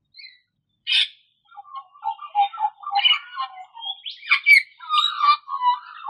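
A recording of Australian magpie song played back from a phone: a continuous run of varied warbling notes that starts about a second in.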